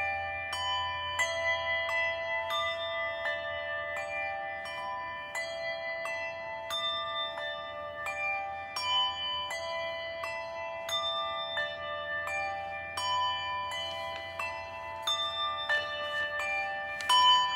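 Bells of several pitches rung over and over by a few people, about two to three strokes a second, each note ringing on under the next, a little louder near the end. It is a memorial tolling: 400 rings, one for each thousand Americans dead of COVID.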